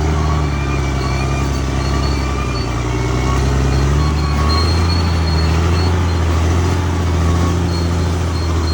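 Caterpillar D6R XL bulldozer's diesel engine running steadily under load, its pitch shifting slightly about four seconds in, with a faint high whine above it.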